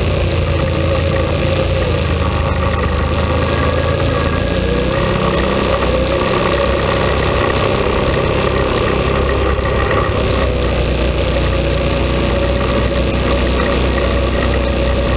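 ATV engine running under steady part throttle while driving along a trail. Its pitch holds fairly level, with small rises and dips.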